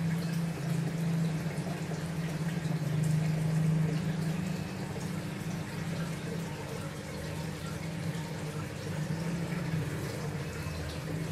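Aquarium pump and filter running: a steady low hum under trickling, bubbling water.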